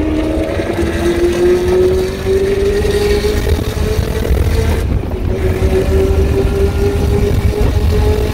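Supercharged 6.2-litre V8 of a Chevrolet Camaro ZL1 1LE at full throttle, heard from inside the cabin over heavy wind noise. The engine note climbs steadily, drops with an upshift about five seconds in, then climbs again.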